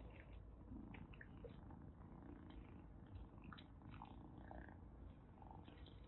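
Kitten purring softly, with faint scattered clicks.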